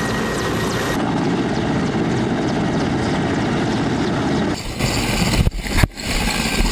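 Mi-8-type military transport helicopters hovering, a loud steady rotor and turbine din. About two-thirds of the way through, the sound changes abruptly, with two heavy thumps about half a second apart.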